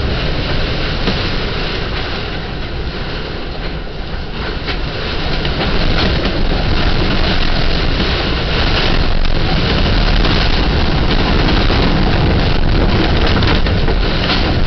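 Hurricane-force wind blowing hard around a sailboat, heard from inside its cabin as a loud, continuous rush with a deep rumble. It swells about five seconds in and stays up.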